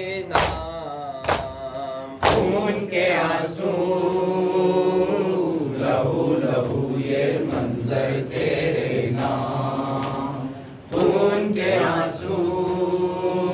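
Male voices chanting a nauha, a Shia mourning lament, in chorus over long drawn-out notes. In the first couple of seconds it is punctuated by sharp chest-beating strikes (matam), about one a second, and a few more come near the end.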